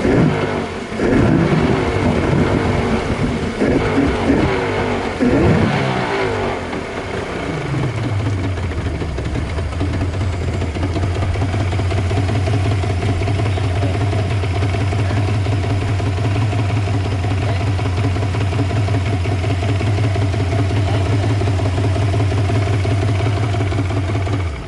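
Yamaha 150 hp two-stroke V6 outboard engine running: revved up and down for the first few seconds, the revs falling away about seven seconds in before it settles to a steady idle. The engine is one with an idle problem.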